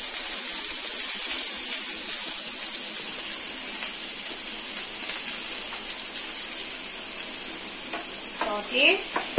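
Chopped onion frying in hot oil in a nonstick pan with garlic, ginger and green chilli: a steady sizzle, with a spatula stirring it near the end.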